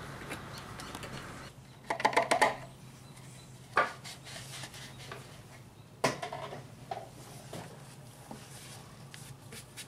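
A red plastic funnel is pulled out of the engine's oil filler neck and handled, giving a few light plastic knocks and clatters about two, four and six seconds in, over a faint steady low hum.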